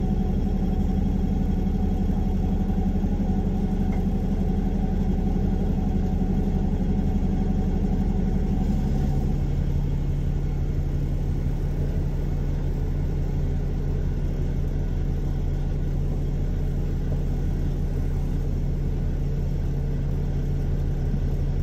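Steady hum and rumble inside a light-rail car standing at a stop with its doors open. The hum's pitch steps down a little about nine seconds in.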